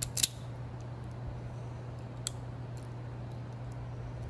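Automatic wire strippers clicking as they grip and strip a cord's wires: two sharp snaps right at the start and a lighter click about two seconds in, over a steady low hum.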